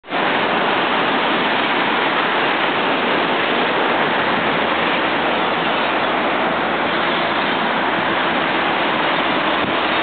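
Ocean surf: a steady, even wash of breaking waves with no single wave standing out.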